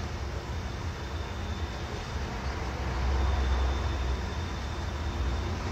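Steady low rumble with a hiss over it, swelling slightly about three seconds in.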